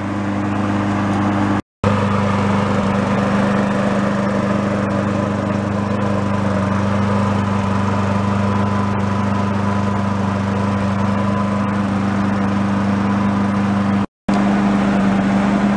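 Craftsman walk-behind mower's small single-cylinder engine running steadily at an even speed, broken twice by brief gaps of silence.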